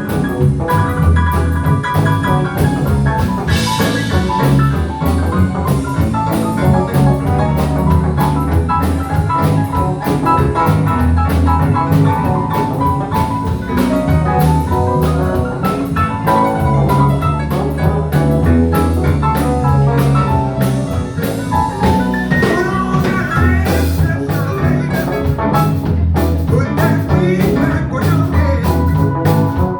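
Live band playing a blues number: a drum kit keeps a steady beat under bass and guitar, with a couple of cymbal crashes.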